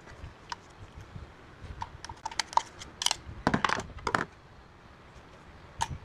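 Scattered clicks and knocks of a disassembled hair dryer's hard plastic housing being handled on a worktable. They are busiest in the middle, with one more click near the end, and are played back at double speed.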